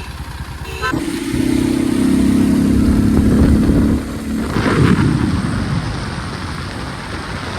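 Motorcycle engine idling, then revving up about a second in and held at higher revs for about three seconds. It drops back, and a brief rush of engine noise follows and fades as the bike pulls away.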